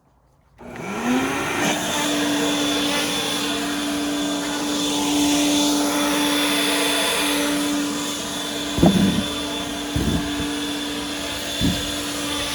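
An electric blower spins up with a rising whine and then runs steadily, blowing dust out of the foam forms. Three short thumps come in the second half.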